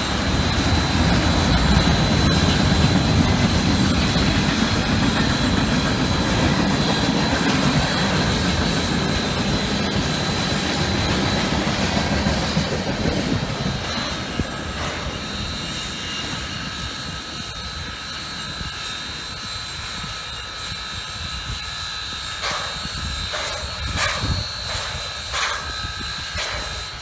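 Freight cars of a long freight train rolling past, steel wheels rumbling on the rails with a thin steady high whine. The rumble fades a little past halfway as the last cars go by, and a few sharp knocks follow near the end.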